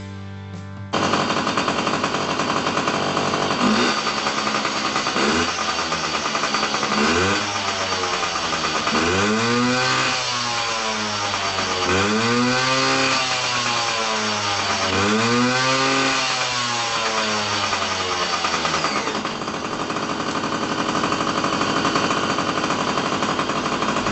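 Yamaha PW50's 49cc two-stroke single running with a rattly exhaust note, blipped repeatedly so the pitch rises and falls with each rev, then settling back to a steady idle.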